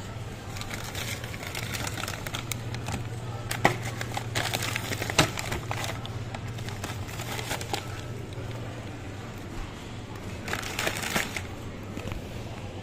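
Plastic bag of frozen plaice fillets crinkling as it is handled and set into a shopping cart, in several rustling spells, with two sharp knocks, over a steady low hum.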